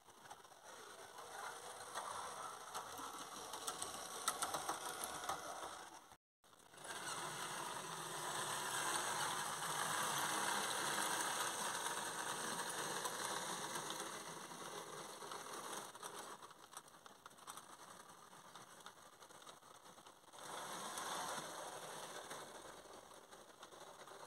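H0 scale model steam locomotive running along the track, its small electric motor and gearing whirring with a fine clicking rattle of wheels on the rails. The sound grows loudest as the locomotive passes close, before the middle, and swells again near the end.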